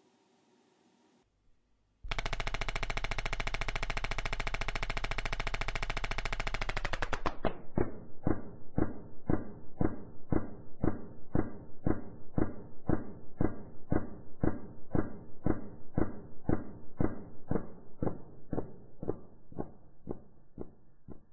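Bowers & Wilkins DM603 S2 woofer driven with a 14 Hz tone, its cone pumping back and forth with a rapid rattling buzz that starts about two seconds in. The tone lets the cone self-centre the voice coil before the new surround is glued. Partway through, the audio is slowed down with the slow-motion picture, and the buzz becomes separate deep thuds about twice a second, fading near the end.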